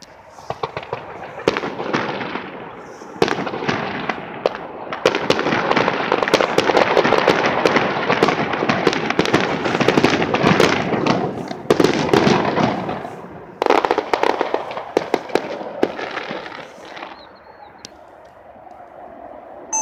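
Fireworks going off in a rapid barrage of sharp bangs and dense crackling. The crackle builds from about a second in, is thick and nearly continuous through the middle, and thins out to scattered pops near the end.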